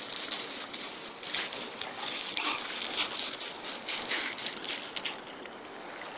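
Footsteps crunching on loose river gravel, an irregular run of pebbly crunches that thins out near the end.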